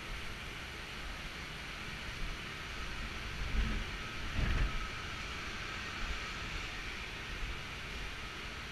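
Steady, even roar of industrial process-plant machinery and airflow, with a faint steady whine. A couple of low thumps come near the middle.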